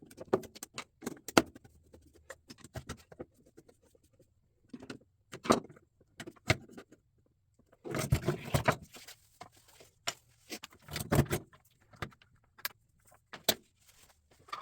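Scattered clicks, taps and rattles of hands handling tools and small metal parts, with two denser bursts of rattling about eight and eleven seconds in.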